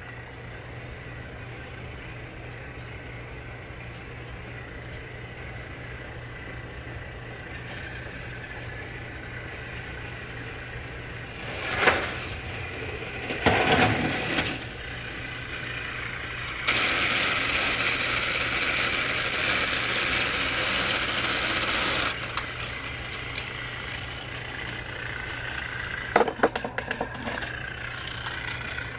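Battery-powered Trackmaster toy railway: plastic clicks and clatter around the middle, then a steady motor whir lasting about five seconds, and a few more sharp clicks near the end.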